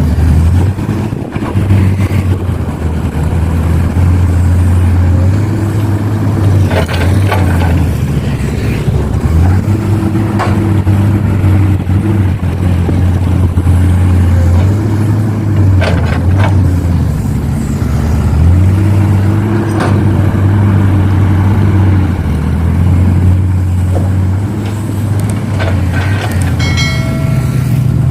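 Heavy diesel engine of an excavator loading soil into a dump truck, running steadily with its note swelling and easing under load, with a few short knocks. A brief high tone sounds near the end.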